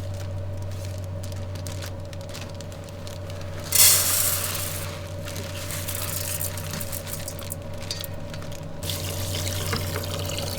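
Water poured into a pot of rice in a sudden rush about four seconds in, then sloshing as the rice is rinsed, over a steady low hum.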